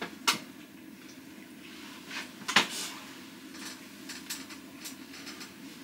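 Spoon clinking against a metal dish: two sharp clinks, then a few lighter taps and scrapes, over a low steady background hum.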